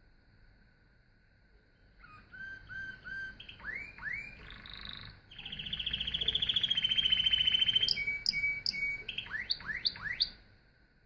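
Domestic canary singing a song that starts about two seconds in: runs of short repeated notes and quick upward sweeps, then a loud rapid trill, ending with a few swooping notes. A faint steady high tone runs underneath.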